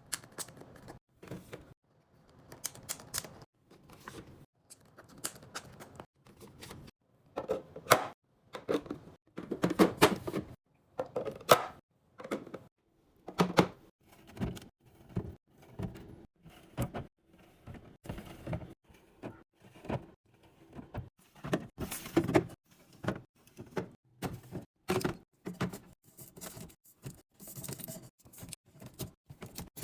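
Irregular clicks, knocks and clatter of containers and food items being handled and set down, with short quiet gaps between them. Some knocks are sharp and loud.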